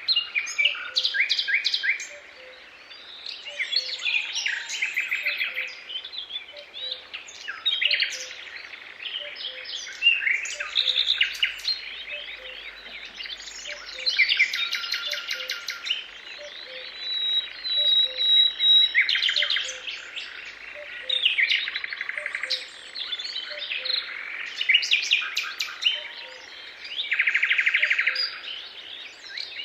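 Several songbirds singing and chirping together in quick overlapping phrases and trills, with hardly a pause.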